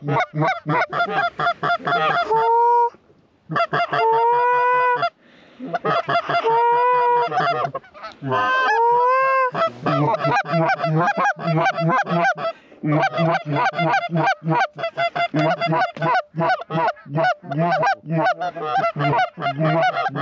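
Hand-blown goose calls working a flock of geese in: rapid back-to-back clucks and honks, broken by several longer drawn notes that rise in pitch. There are brief pauses a few seconds in and again about twelve seconds in.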